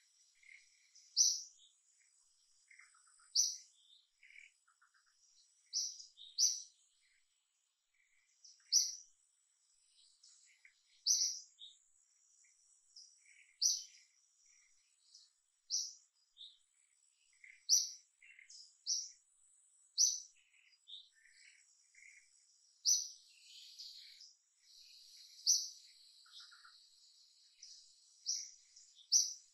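A bird repeating a short, sharp, high chirp about every two seconds, with quieter calls of other birds and a faint steady insect whine behind it.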